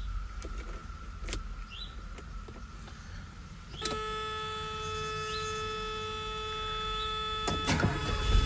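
Cold start of a 1984 Mercedes-Benz 380 SL's 3.8-litre V8. A click as the key turns, then a steady electric whine comes on about four seconds in with the ignition on. Near the end the starter cranks and the engine catches, settling into a low steady run.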